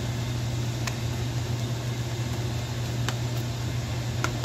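A spatula knocks lightly against a frying pan three times while stirring, over a steady low hum.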